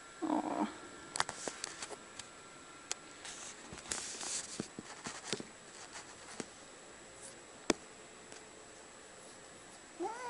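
Soft scattered clicks and rustles, with a short low sound right at the start. Just before the end, a cat starts a meow that rises and falls in pitch.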